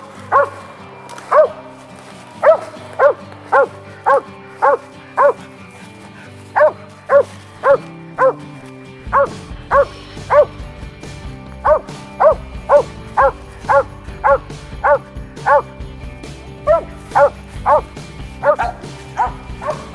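A squirrel-hunting dog barking treed: loud, steady chop barks at about two a second, with a few short pauses, marking a squirrel up the tree. Background music plays underneath.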